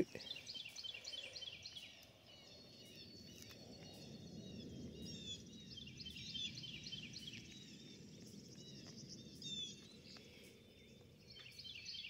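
Faint birdsong: small birds twittering in quick runs of short chirps, over a soft low rumble.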